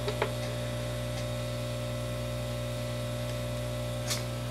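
Steady electrical hum with a few faint higher tones over it, with a small click just after the start and a short sharp tick near the end.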